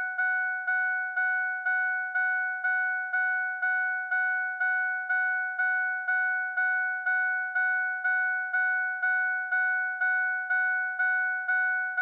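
Ford pickup truck's door-ajar warning chime: a ding repeating steadily about twice a second, each ding fading quickly, signalling that a door is left open.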